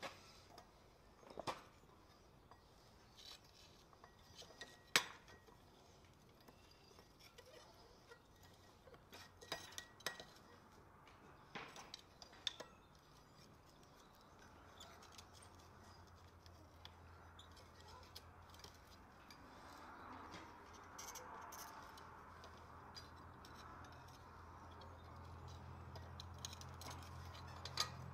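Faint, scattered metallic clinks of blacksmith tongs against hot iron scrollwork and the stake in the anvil, the sharpest about five seconds in. A faint low hum comes in about halfway through and grows toward the end.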